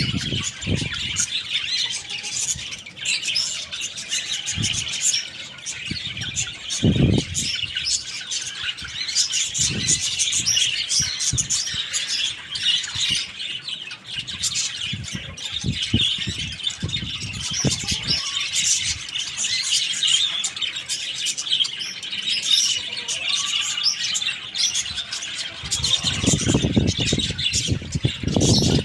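Young chickens chirping continuously while feeding, with scattered low thuds that come thickest near the end.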